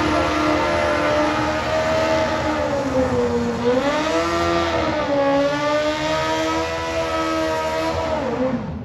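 Drag-racing motorcycle engine held at high revs, the note dipping and rising again about halfway through, then dropping and cutting off abruptly near the end.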